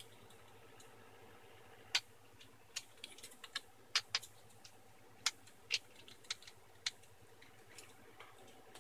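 A dozen or so sharp, irregular clicks and taps of a small screwdriver and a metal hard-drive bracket being handled and screwed together, the loudest about two and four seconds in.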